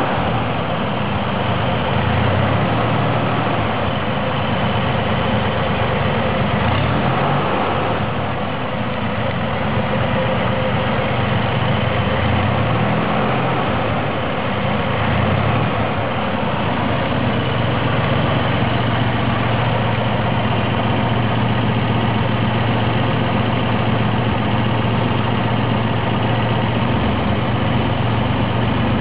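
Chevrolet Corvair's air-cooled flat-six engine idling steadily, its low hum wavering slightly in pitch through the first half before settling.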